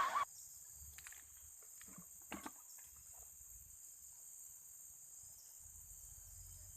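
Steady high-pitched chirring of insects, with a few faint clicks and knocks about a second and two seconds in.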